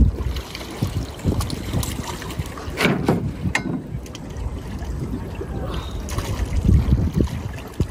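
Shallow lake water sloshing and splashing as a giant Mekong catfish is handled in and out of a landing net, with a sharp splash or knock about three seconds in. Wind buffets the microphone throughout, heaviest at the start and again near the end.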